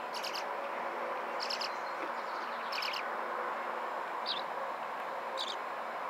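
Nestling birds giving short, high begging chirps, about five brief bursts, as they are hand-fed with tweezers, over a steady background hiss.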